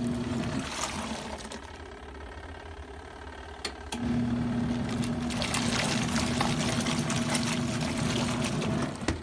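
Compact twin-tub washing machine running: a steady electric motor hum with water swishing and pouring. The hum stops for a few seconds and starts again about four seconds in, with more water noise after that.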